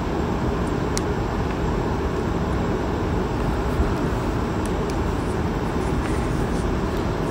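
Steady low background rumble, with a few faint clicks of plastic parts as a hair straightener's hinge pivot is pushed back into place.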